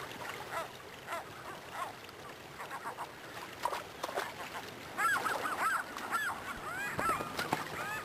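Gulls calling: a scatter of short arched cries, then a dense chorus of overlapping cries from about five seconds in, over a faint rush of river water.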